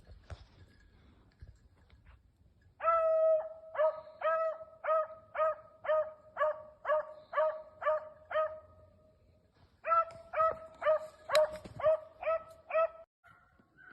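A beagle barking a steady string of same-pitched chop barks, about two a second, pausing briefly midway and then starting again: a hound giving tongue while trailing a rabbit.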